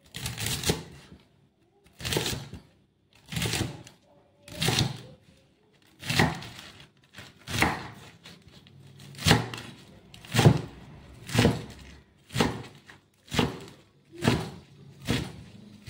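Cleaver chopping white-stemmed bok choy on a round wooden chopping board. Each stroke cuts through the stalks and hits the wood, about a dozen strokes roughly one a second, coming a little quicker toward the end.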